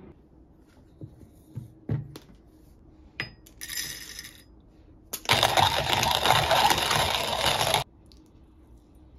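A few clicks, then coffee beans rattling into the metal hopper of a hand-crank coffee grinder. This is followed by about two and a half seconds of loud grinding that starts and stops abruptly.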